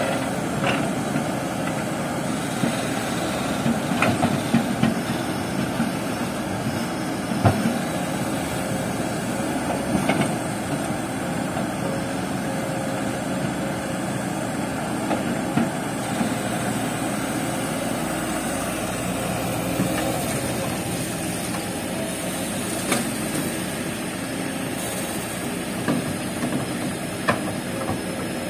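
Kobelco SK200 hydraulic excavator's diesel engine running steadily, with occasional sharp knocks as the bucket works.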